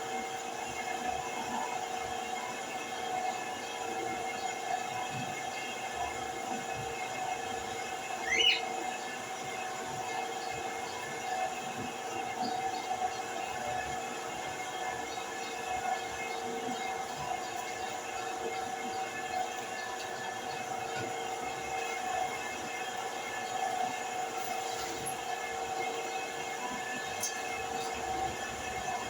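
Steady mechanical hum of a household appliance motor, holding a couple of even tones throughout. A brief, high, rising squeak comes about eight seconds in.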